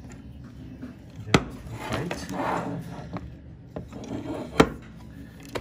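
Stone dental casts being handled and set on an articulator: three sharp knocks of stone against the articulator's hard parts, with a rubbing scrape between them.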